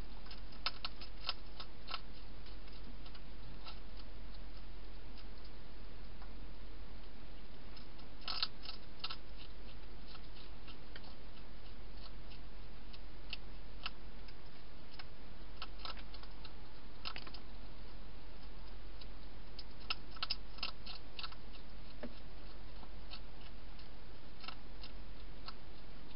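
A hedgehog crunching dry food, in short bursts of sharp clicks every few seconds, over a steady low hum.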